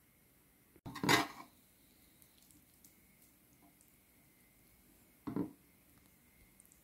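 Metal spoon clinking against an engraved metal soup bowl while scooping up soup: a loud clatter about a second in and a second, smaller clink about five seconds in, with faint ticks between.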